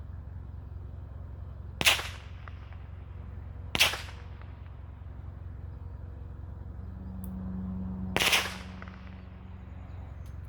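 Three sharp, loud bangs of small firecracker-type fireworks. The first two come about two seconds apart, and the third about four and a half seconds later.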